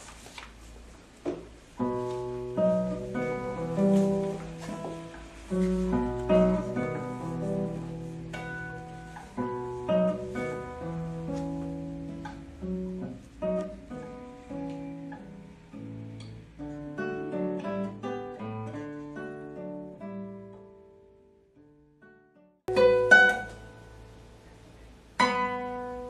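Acoustic guitar playing a slow passage of plucked single notes and chords, each left to ring and fade. Near the end, after a short pause, come two louder plucks.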